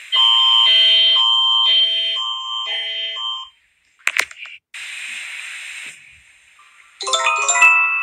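Canadian emergency alert attention signal: a steady high tone over low paired notes that pulse about once a second, stopping after about three and a half seconds. A short hiss follows, and near the end the Japanese emergency alert chime begins, a run of bell-like notes.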